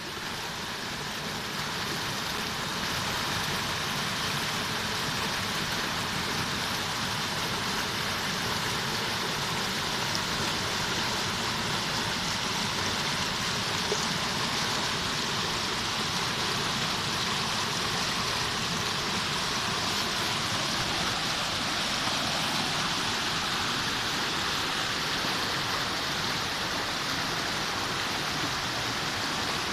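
River water flowing: a steady rushing of water that fades in over the first second or two, then holds even.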